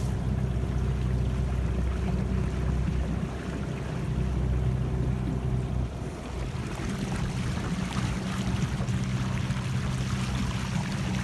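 A small motorboat's engine runs with a steady low hum, over the splash of water and wind on the microphone.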